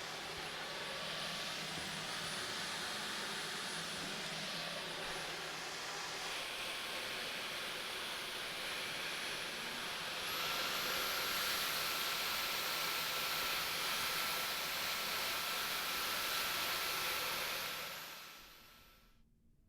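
Dyson V15 Detect cordless vacuum cleaner running with a steady motor whine. About halfway through, the whine steps up in pitch and the sound gets louder. Near the end the motor is switched off and winds down.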